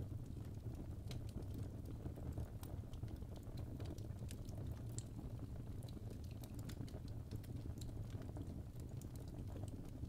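Fire crackling: many small irregular snaps and pops, one sharper pop about halfway through, over a low steady rumble.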